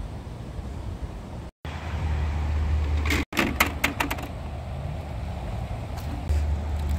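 A quick run of sharp plastic clacks about three to four seconds in, as discs drop into a giant Connect Four frame, over a steady low wind rumble on the microphone.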